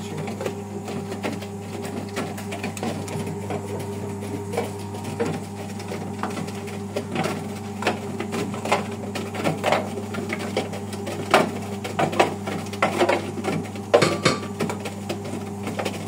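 Brandt top-loading washing machine running a wash cycle: a steady motor hum with irregular clicks and knocks from the turning drum, more frequent and louder in the second half.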